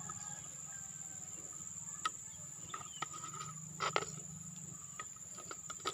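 Insect trilling steadily on one high note, with a few short clicks and knocks, twice the loudest around two and four seconds in, as a plastic bucket lid is handled and lifted off.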